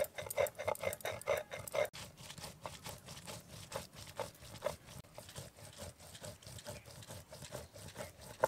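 Chillies, cumin and coriander being ground by hand into a spice paste: quick, rhythmic grinding strokes, several a second.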